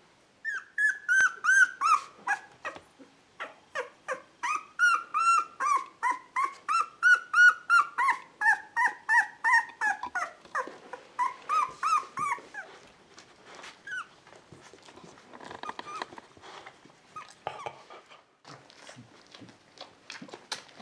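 Two-week-old beagle puppy crying in a rapid string of short, high, falling whines, about three a second, for some twelve seconds, then only faint scattered sounds.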